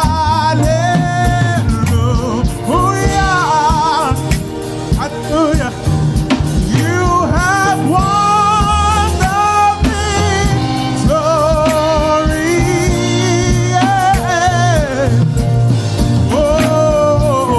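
Live gospel praise music: a lead singer holding wavering, vibrato-laden notes over a band with bass and a steady drum beat.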